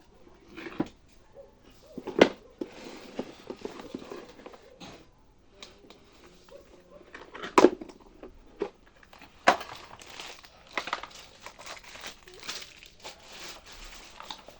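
Handling noise: irregular clicks and knocks with crinkling and rustling, the loudest knocks about two seconds in, past seven seconds and near nine and a half seconds. No steady motor or even hammering rhythm of a running impact wrench.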